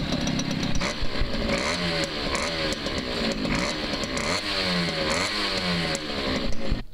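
Malanca moped's small two-stroke engine being revved over and over, its pitch rising and falling in quick blips; the sound cuts off suddenly near the end.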